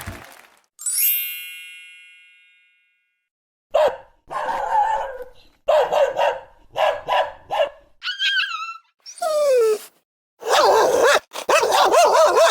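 A bright chime rings once and fades. Then a dog barks repeatedly in short bursts, mixed with high, gliding whines and yelps.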